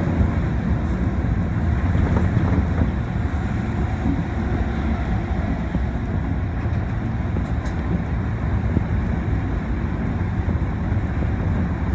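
Osaka subway 22 series train running through a tunnel, heard inside the car: a steady rumble of wheels on rail and running gear.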